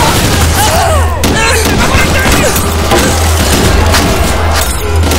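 Movie gunfight sound effects: repeated gunshots and booming impacts over a steady deep rumble.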